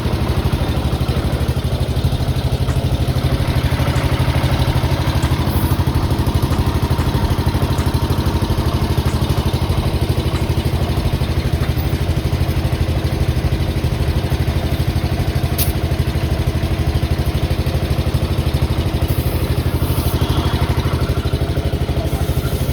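An engine running steadily at idle with a low, even throb that does not change.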